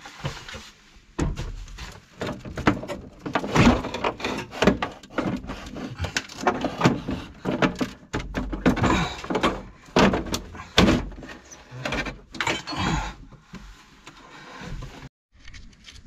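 Irregular knocks, clunks and scrapes as a Santon Aqualine electric water heater is worked loose and lifted off its wall bracket, its metal and plastic casing knocking against the fittings.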